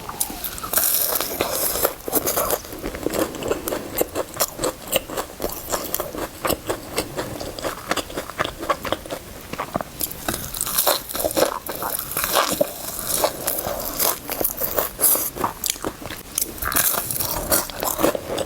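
Close-miked eating of fried cabbage: repeated crunchy bites and wet chewing, crackly and irregular, with louder bursts of crunching near the start, around the middle and near the end.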